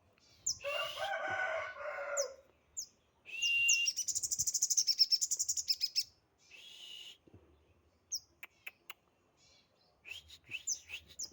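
A sogon bird singing a varied song: sharp high down-slurred chirps, a harsh call about a second in, then a loud rapid trill of about ten notes a second lasting a couple of seconds, followed by a few clicks and more quick chirps near the end.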